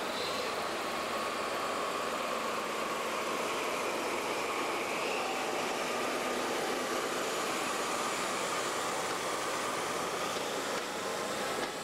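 JNR Class DE10 diesel-hydraulic locomotive working under power as it passes close by, followed by its red 50-series passenger coaches rolling past; a steady engine and rolling noise.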